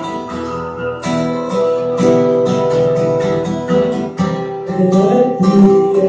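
Acoustic guitar strummed, its chords ringing on between repeated strokes, with no singing.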